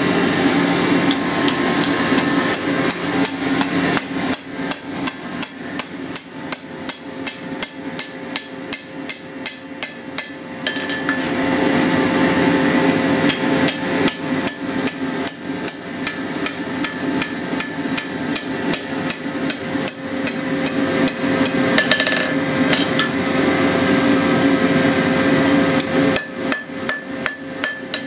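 Hand hammer striking a red-hot steel bar on an anvil, bending its end into a scroll: repeated ringing blows, with a fast even run of about three to four a second in the first third.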